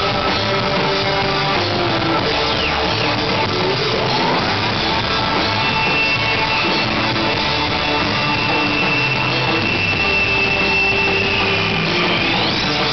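Japanese psychedelic rock band playing live, heard from the crowd: electric guitar and drums in a dense, loud wall of sound. A high tone is held through the middle and breaks into sweeping up-and-down glides near the end.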